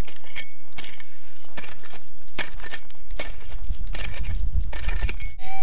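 A prospecting pick striking and scraping into hard stony ground, repeated strokes a little under a second apart, digging out a metal detector target.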